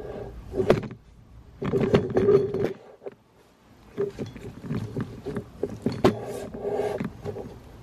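Repeated sharp clicks, knocks and rattling of car door parts being handled and fitted by hand, with a short pause about three seconds in.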